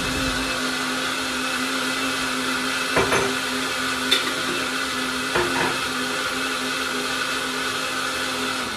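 Countertop jug blender running steadily at full speed, blending banana and milk into a smoothie, with a few light knocks about three, four and five and a half seconds in.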